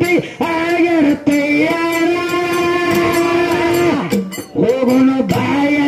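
Dollina Pada folk singing: a voice holds long, drawn-out notes that slide down at their ends, over evenly repeated percussion strokes.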